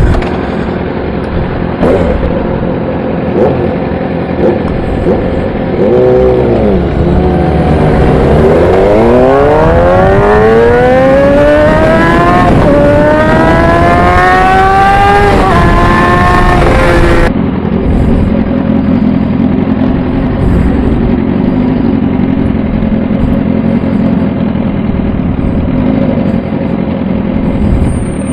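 Superbike engine pulling away hard from a standstill: a brief rev, then the engine note climbs steeply through two upshifts with wind rush building. Just past halfway the throttle shuts abruptly and the bike rolls on at a low, steady run in traffic.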